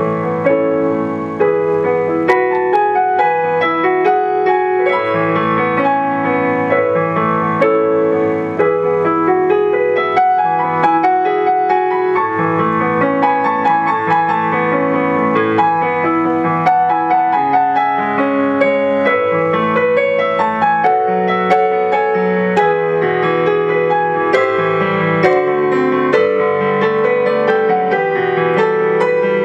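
Solo piano music played on a digital piano: chords and a melody line in an unbroken, even flow of notes.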